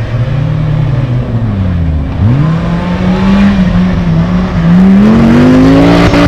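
Audi autocross touring car's engine racing on a dirt track. The revs fall away, jump up sharply about two seconds in, hold briefly, then climb steadily and get loudest near the end as the car passes close and accelerates out of the corner.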